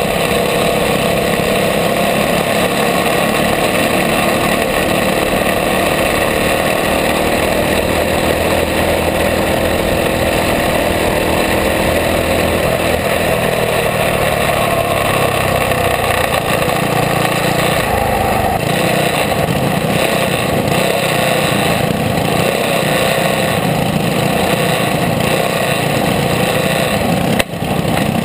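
Racing champ kart's engine running hard at race speed, heard from a camera mounted on the kart, its pitch shifting a little as the kart goes through the turns. A brief sharp dropout near the end.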